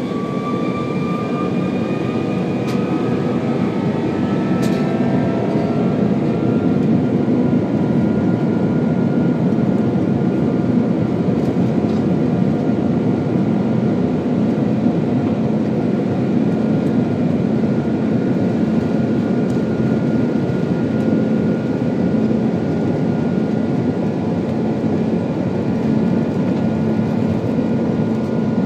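Airbus A330 jet engines spooling up to takeoff power, heard from inside the cabin: a whine that rises in pitch over the first several seconds and then holds steady, over a loud rumble that grows as the aircraft accelerates down the runway.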